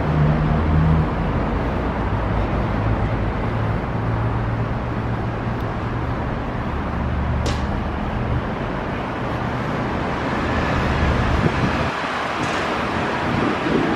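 Steady city traffic noise, with a low engine hum from road vehicles under it. The low hum drops away about twelve seconds in, and a single brief tick comes about halfway through.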